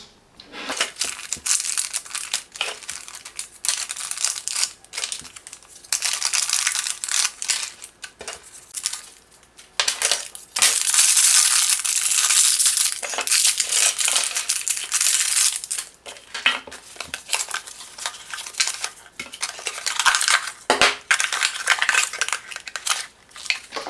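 Paper and plastic packaging rustling and crinkling in irregular bursts, with a few light knocks, as printed inserts and small parts are handled out of a box. The longest stretch of rustling runs through the middle.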